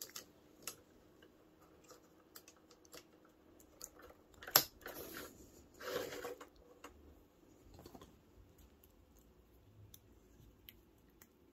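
Hard plastic toy parts handled and clicked together: scattered light clicks and rustles, with one sharp snap about four and a half seconds in as a piece is pressed into place.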